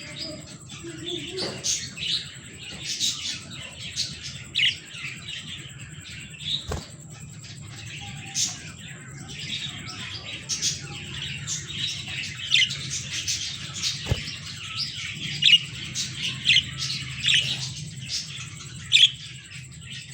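Budgerigars chattering: a continuous run of short high chirps and warbles, with a few louder sharp calls near the end. These are the sounds of a breeding budgie pair on eggs.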